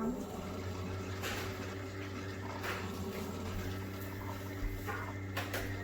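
Keurig K-Mini single-serve coffee maker mid-brew: a steady low hum from its pump and heater with water bubbling through, a higher hum joining a little over halfway through.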